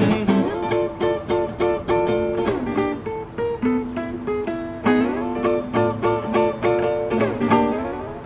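Acoustic guitar played solo: a picked melody of single notes and chords, an instrumental passage between sung verses.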